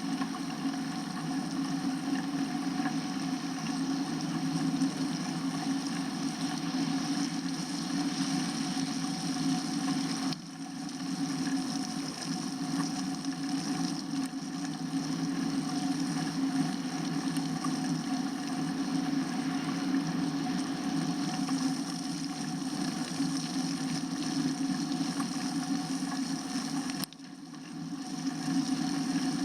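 Steady wind and rolling noise from a bicycle ride, a continuous low rumble. It drops out sharply twice, about ten seconds in and near the end, and builds back each time.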